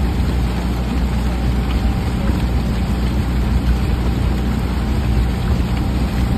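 Outboard motor of a coaching launch running at a steady speed, a low, even drone.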